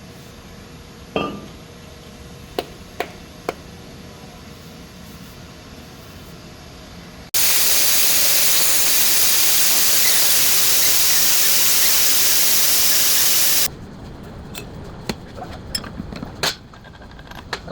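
A few sharp metallic clinks of tools, then a loud, steady hiss that starts abruptly, runs about six seconds and cuts off, followed by more small clinks of tools.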